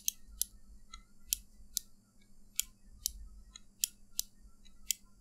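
A Glorious Model D gaming mouse's buttons are pressed and released over and over, each giving a sharp click, in pairs about every second and a quarter. The owner says the button shells sound squeaky and hollow when they bottom out.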